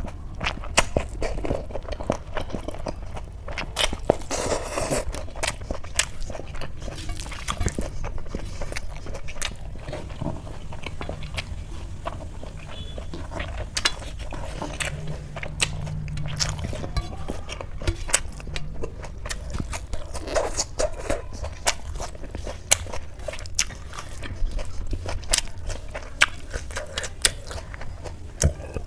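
Close-up eating sounds: chewing and biting, with many irregular sharp crunchy clicks, over a low steady hum.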